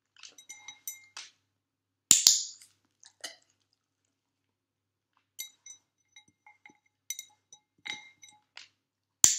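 Glass bowl of water clinking with light ringing taps as a dog noses and paws at it. Two much louder sharp clicks come about two seconds in and near the end.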